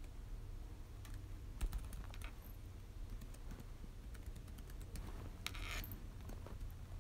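Typing on a 2011 MacBook Air 11.6-inch laptop keyboard while entering a password: irregular light key clicks, with one louder knock about a second and a half in.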